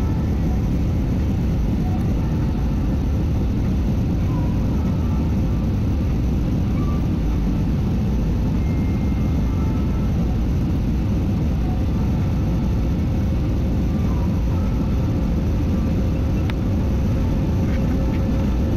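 Steady rumble of an airliner's cabin noise, heard from inside at a window seat, as the jet comes in on final approach and reaches the runway, with a faint steady tone riding above it.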